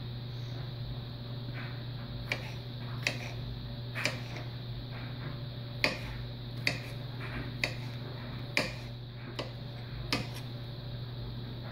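Kitchen knife chopping a jalapeño pepper on a cutting board: sharp knocks of the blade hitting the board, irregular, about one a second from about two seconds in, over a steady low hum.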